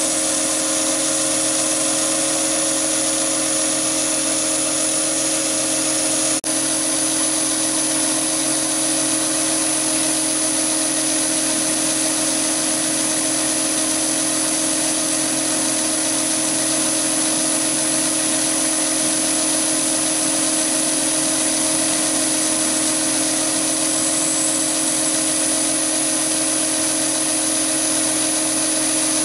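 Chinese mini lathe running steadily at about 760 rpm, with a constant motor and gear whine, while a solid carbide boring bar bores a hole in 316 stainless steel. The sound breaks off for a split second about six seconds in.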